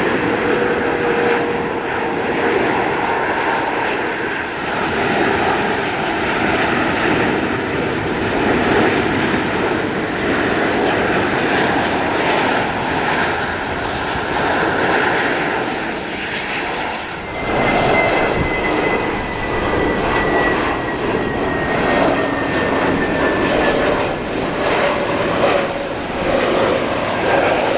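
Jet airliner engines on approach to land, a loud steady noise with a whine in it. About two-thirds of the way through the sound changes abruptly, and a high whine then slowly falls in pitch.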